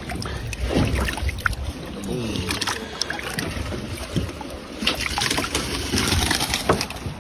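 Background noise aboard a small fishing boat at sea: a steady low rumble with scattered small knocks and clicks.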